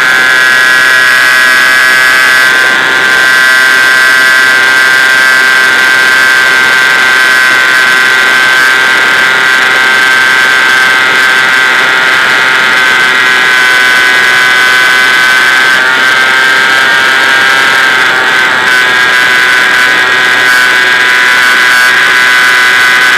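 Ripmax RC Spitfire model's motor and propeller in flight, heard up close from the nose: a loud, steady high-pitched whine that dips slightly in pitch about eighteen seconds in.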